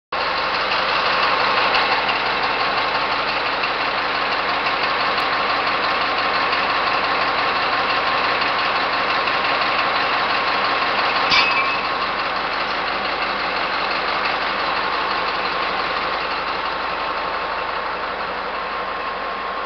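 Heavy mining haul truck's diesel engine idling steadily, with one short knock about eleven seconds in.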